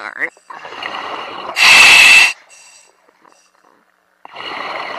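Scuba diver breathing through a regulator, picked up by the diving mask's communications mic: an inhale hiss, then a loud rush of exhaled bubbles lasting under a second, a pause, and another inhale near the end.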